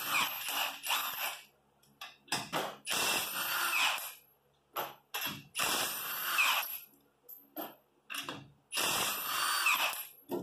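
Cordless impact wrench hammering the lug nuts off a truck's front wheel: four bursts of about a second and a half each, with a few short clicks in the pauses between them.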